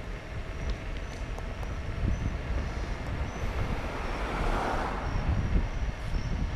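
Wind rumble on the microphone and tyre noise from an EcoReco M5 electric scooter rolling along asphalt at speed. A faint high whine comes and goes.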